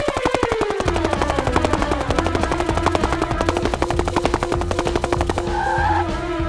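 Cartoon sound effect: a whistle-like tone gliding downward, then settling into a held note over a fast, even rattle of clicks. A low hum joins about a second in.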